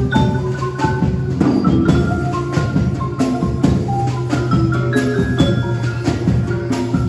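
Percussion ensemble playing a tango arrangement for percussion alone: quick struck pitched notes on tuned mallet percussion carry the tune over drum strokes and a steady low note.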